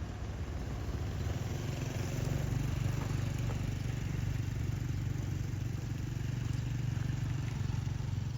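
An engine running steadily with a low hum, a little louder from about two seconds in.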